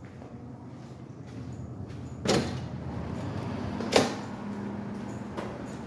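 Commercial glass exit doors with panic push bars clunking as they are pushed open and swing shut: two sharp clunks about a second and a half apart, then a fainter knock near the end, over a steady background of street noise.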